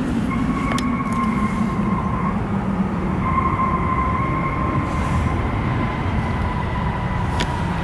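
Jet aircraft engines running with a low rumble and a steady high whine that sinks slightly in pitch.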